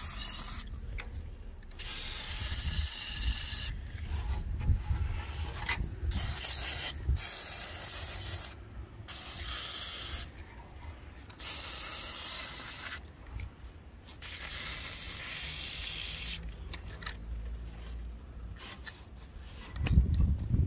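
WD-40 aerosol can sprayed over an engine's spark plugs, leads and carburettor. It hisses in a series of bursts, some several seconds long, with short pauses between them. A low rumble runs underneath, and there is a louder low thump near the end.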